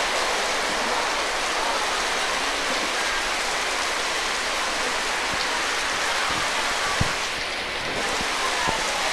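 Steady hissing noise with no speech, like rain or electronic hiss, with a soft knock about seven seconds in and a few fainter ones around it.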